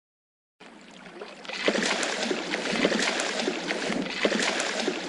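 Water splashing and sloshing, as from a fish thrashing at the surface. It starts faintly, gets louder about a second and a half in, and is full of small clicks and short low splashes.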